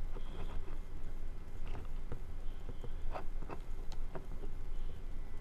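Scattered small clicks and rustles of fingers handling plastic parts and wires inside an opened Xbox 360 wired controller shell, over a steady low hum.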